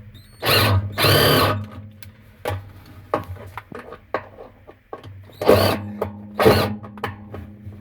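Electric drill-driver running in four short bursts, two early and two near the end, driving screws through the plastic hub of a Brastemp 15 kg washer's basket into the metal shaft to lock the loose basket in place.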